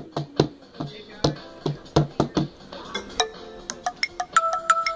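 A hand drum slapped with a child's palm in a loose, uneven beat, each hit a dull thump. About three seconds in, single electronic keyboard notes take over, stepping between pitches.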